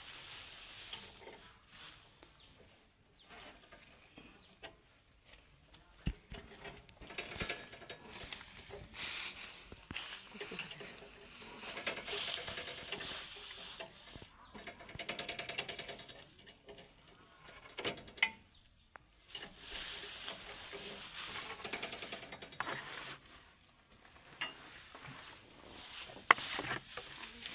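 Irregular scraping, rustling and sharp clicks of hands and tools working on machinery, coming and going in uneven spells.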